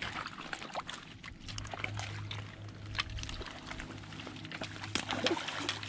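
Faint water sounds, with many small scattered clicks and crackles, over a low steady hum.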